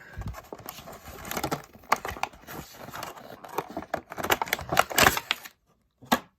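Toy packaging being opened by hand: crinkling, rustling and tearing with scattered sharp clicks, stopping about five and a half seconds in.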